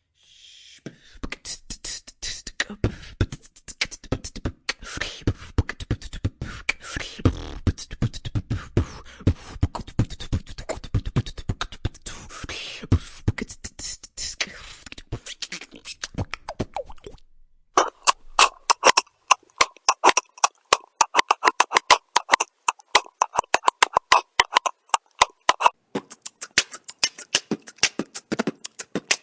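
Human beatboxing in two routines. The first has rapid deep kick-drum sounds and snares. It breaks off about seventeen seconds in, and a sparser, sharper clicking beat with little bass follows.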